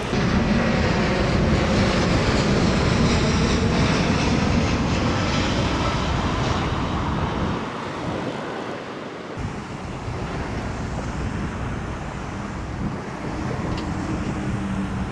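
Jet airliner passing overhead: a loud, steady engine rush that eases off about halfway through.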